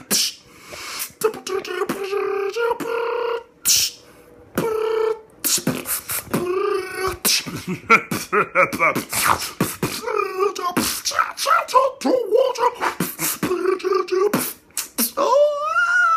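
A man beatboxing a dubstep-style 'boots and cats' beat: rapid sharp mouth clicks and snare-like hits mixed with held hummed tones. Near the end comes a wavering tone that rises and falls, in imitation of a wobble bass.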